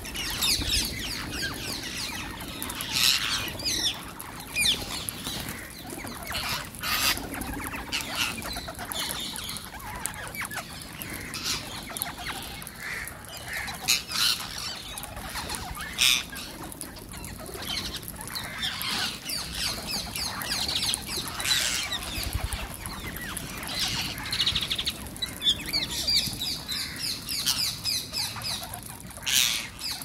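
A large flock of rose-ringed parakeets: bursts of wing flapping as birds land and take off, mixed with many shrill, repeated screeching calls.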